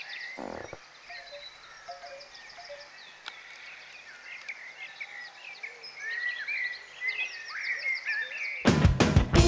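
Several songbirds chirping and trilling in woodland, with a short low rush of noise about half a second in. Near the end, loud rock music with guitar starts abruptly.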